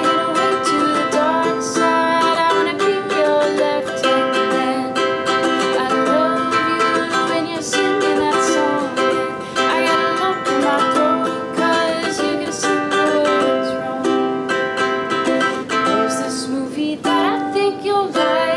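Ukulele strummed in chords, with a voice singing along.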